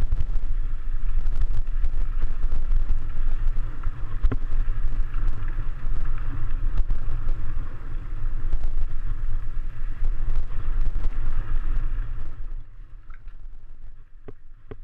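Wind buffeting the microphone and a mountain bike rattling over a rocky trail on a fast descent, a steady rumble with scattered knocks that falls away sharply near the end.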